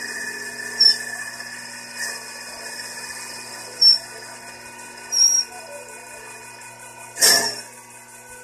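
Small CNC lathe turning a wooden workpiece: the spindle motor runs with a steady whine and hum while the cutting tool takes its final finishing pass. A few short high chirps come through, and about seven seconds in there is a brief harsh scrape, the loudest sound.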